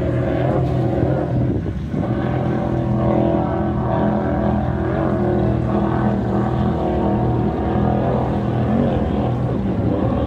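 Distant racing powerboats' engines droning steadily, the pitch wavering slightly, with a brief dip about two seconds in.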